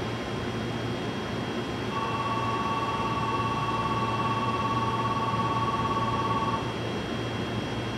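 Railway platform background of steady hum and hiss. About two seconds in, a steady two-note tone starts, holds unchanged for about four and a half seconds, and stops.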